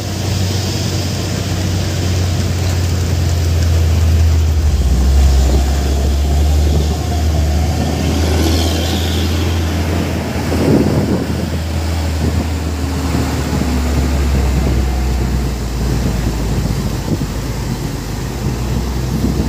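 Heavy trucks' diesel engines running as they crawl past close by: a deep, steady engine drone.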